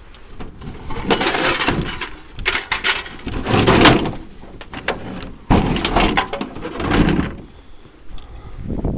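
Scrap metal clattering and crashing as it is handled, in three noisy bursts, the sharpest starting about five and a half seconds in.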